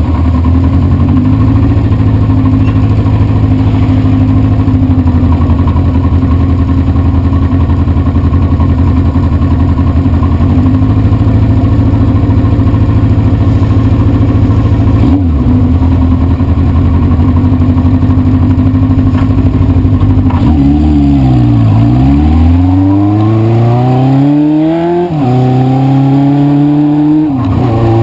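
1973 Honda CB500 Four's air-cooled inline four-cylinder engine running loud and steady, with a brief dip in pitch partway through. Near the end the revs fall, then climb and drop sharply twice: accelerating up through the gears.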